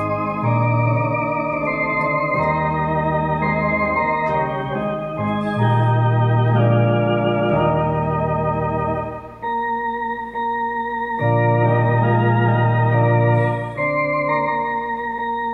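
Two-manual electronic organ (D-2 Dual Voice) playing a hymn in sustained, legato chords over held bass notes, the harmony changing every second or two. The bass drops out for a moment around the middle, then returns.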